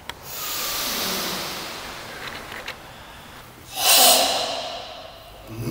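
Forceful, deliberate karate breathing of the Goju-ryu Sanchin kind: a long hissing breath lasting about two seconds, then a shorter, louder forced exhale about four seconds in.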